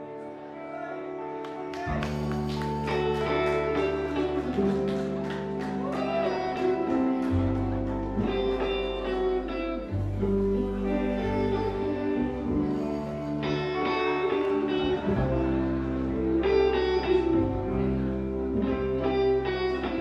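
Live rock band playing an instrumental intro on guitars, bass, keyboard and drums. A held chord fades in, and bass and drums join about two seconds in.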